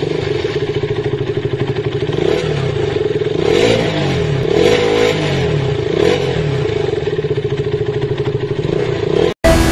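Motorcycle engine running with a fast, even pulse, revved up and down around the middle, then cut off suddenly near the end.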